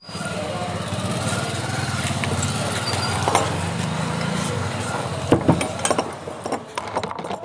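A small engine running steadily, with a few sharp handling knocks near the end before the sound fades out.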